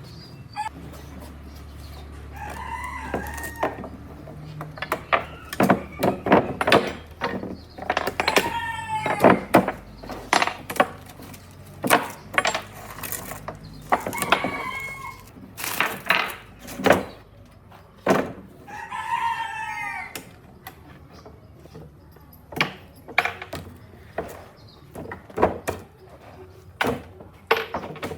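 A rooster crowing about four times, each crow a second or two long, among a string of sharp knocks and taps.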